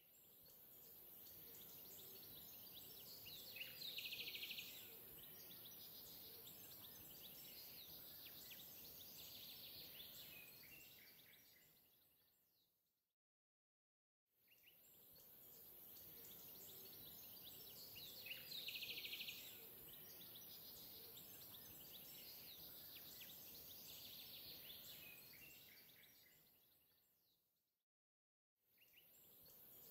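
Faint ambience of hiss with a few faint bird chirps, a short looped clip that fades in, fades out about thirteen seconds in, and plays over again.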